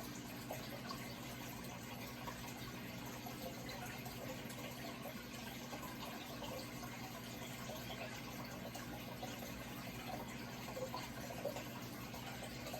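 Running water trickling and splashing steadily, over a low steady hum.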